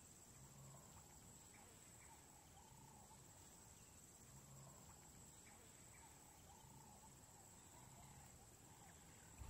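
Near silence: faint outdoor ambience with a steady high-pitched hum.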